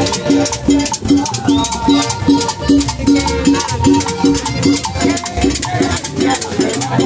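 Upbeat Latin dance music with drums and shakers over a bouncing bass line, about two and a half bass notes a second, keeping a steady beat.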